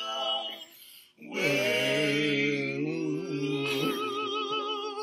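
Singing voices hold a long drawn-out note after a brief pause; near the end a higher note comes in with a wavering vibrato.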